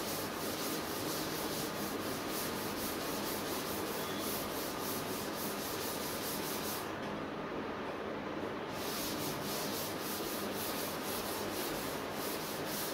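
Chalk being wiped off a green chalkboard: steady rubbing in quick back-and-forth strokes, which pause briefly about seven seconds in.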